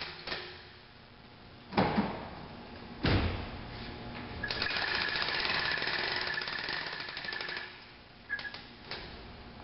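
A hitch-mounted tailgate lift and pickup tailgate being worked by hand: two sharp metal bangs in the first few seconds, then a fast mechanical rattle with a high whine for about three seconds, and a couple of light clicks near the end.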